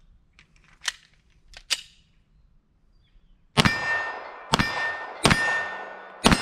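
A few light handling clicks, then four pistol shots from a Glock-pattern 9mm, roughly a second apart. Each shot is followed by the long ringing clang of a steel plate target being hit.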